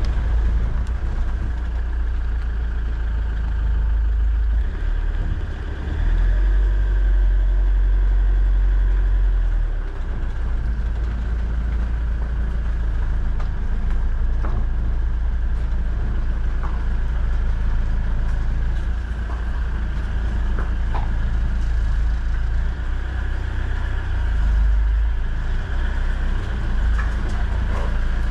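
A truck's engine running steadily as the truck moves slowly, a low rumble that grows louder for a few seconds near the start.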